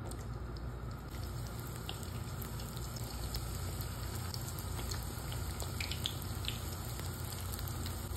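Sambusa frying in a shallow pan of hot oil: steady sizzling with scattered small pops and crackles.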